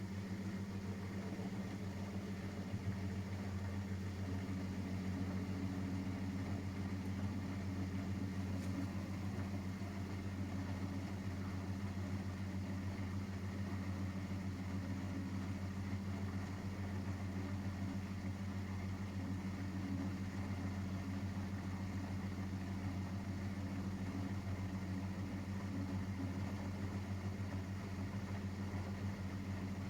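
Miele Professional WS5436 washing machine running mid-cycle, giving a steady low hum that does not change.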